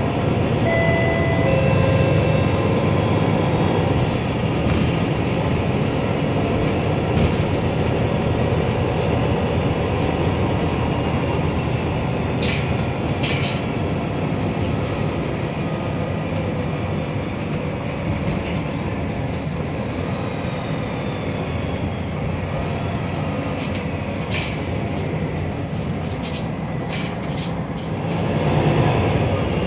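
Steady engine and road rumble inside a moving MAN NL323F A22 city bus, with a few sharp rattles and knocks from the body. It grows louder near the end.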